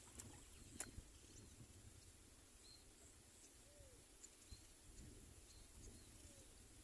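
Near silence: faint outdoor ambience with a few faint, short high chirps and a single sharp click just under a second in.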